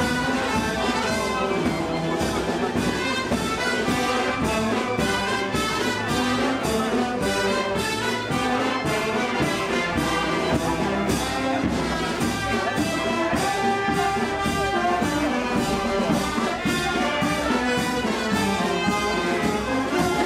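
Brass band playing a march, with the brass over a steady drum beat.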